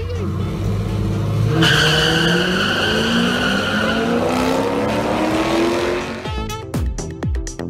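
Drag-racing cars launching and accelerating hard down the strip, engine pitch climbing steadily through the run, with a high tyre squeal joining about a second and a half in. Near the end the engine note drops away.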